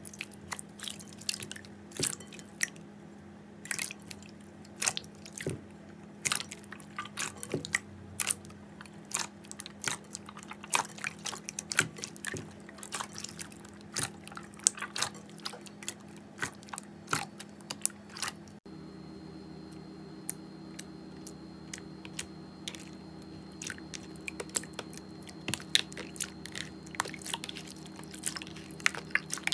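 Slime being handled and pressed, giving many sharp, irregular crackles and clicks. There is an abrupt change in the background about two-thirds of the way in, where another slime clip begins.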